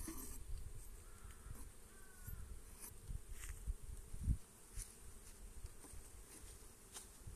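Honeybees buzzing around an open wooden box hive while its frames are handled, with scattered light wooden clicks and one dull thump about four seconds in.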